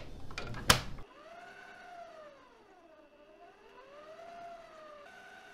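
A few clicks and a sharp snap as the stand mixer's tilt head is locked down, then the electric motor's whine, gliding up and down in pitch before settling to a steady tone, as the dough hook begins mixing flour and water into dough.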